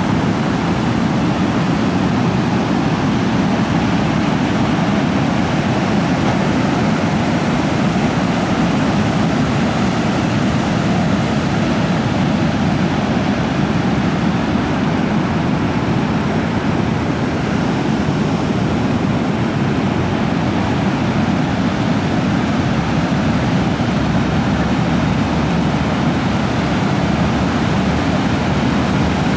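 Steady rushing roar of a creek in flood, fast high water running without a break.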